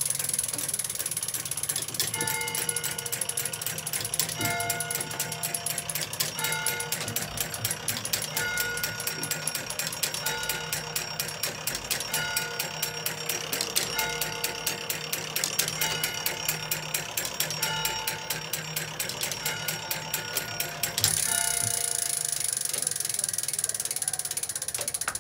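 Tower clock movement from 1881 running, its gear train and pawls giving off a dense, rapid ratchet clicking, with short steady tones coming back every second or two. Near the end the clicking turns into a more even, regular ticking.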